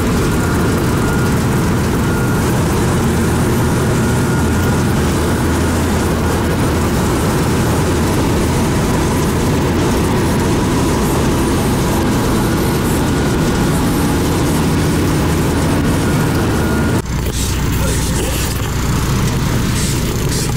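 Steady engine and road noise heard inside the cab of a motorhome on the move. About seventeen seconds in it cuts abruptly to a different, steadier low hum with more hiss.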